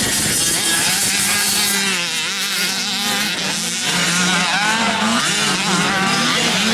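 Motocross bikes' engines revving up and down as they ride the track, with several engines overlapping and their pitches rising and falling repeatedly.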